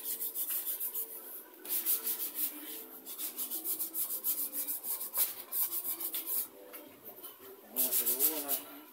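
Hand sanding of stained wood: quick back-and-forth strokes about five a second, in runs broken by short pauses.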